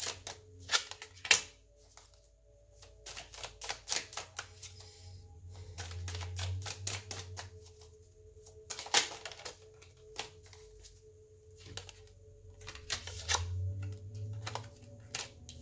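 A deck of tarot cards being shuffled by hand: irregular runs of quick card clicks and snaps, with a few sharper snaps, the loudest about nine seconds in.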